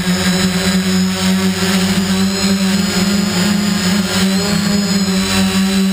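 Quadcopter's electric motors and propellers heard from the onboard camera: a steady drone with a high whine above it, shifting slightly in pitch as the throttle changes.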